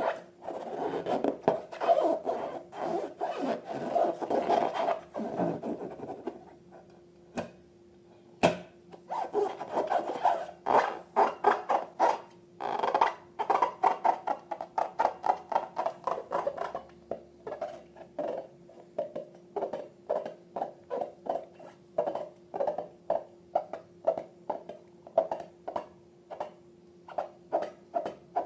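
Slime being squished and kneaded by hand: dense wet rubbing at first, then, after a short lull, a long run of sticky clicks and pops about two a second. A faint steady hum runs underneath.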